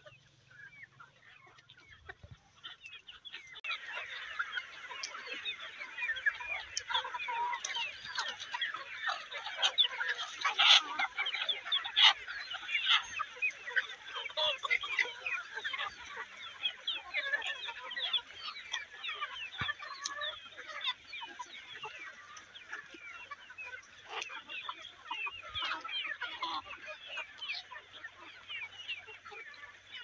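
A flock of free-range chickens clucking and chattering, a dense, busy chorus of many short calls that swells about three seconds in and carries on steadily.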